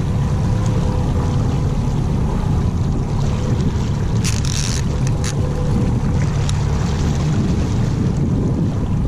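Small fishing boat's motor running steadily under way, mixed with wind on the microphone and water noise. A few short hissing bursts come a little past the middle.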